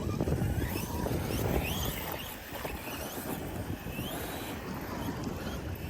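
Electric RC monster trucks' motors whining up and down in pitch as they are driven, over low wind rumble on the microphone.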